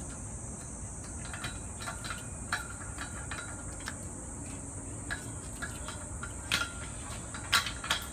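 Galvanized steel fence pipe and fittings clinking and knocking as a rail is pushed into a rail end cup by hand, with short metal taps throughout and the sharpest about two thirds of the way in and near the end. A steady high insect chorus, like crickets, runs underneath.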